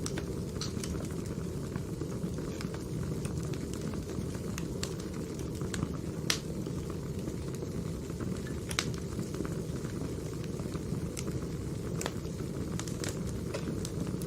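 Wood fire burning: a steady low rush with irregular sharp crackles and pops, the loudest about six and nine seconds in.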